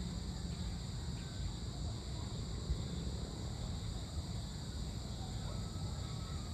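A steady, unbroken high chorus of insects, like crickets at dusk, over a low steady rumble.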